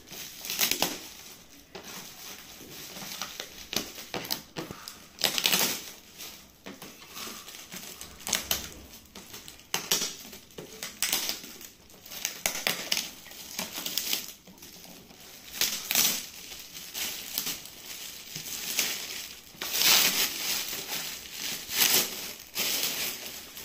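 Shiny metallic gift-wrapping paper crinkling and tearing as it is pulled off a cardboard box, in irregular rustling bursts.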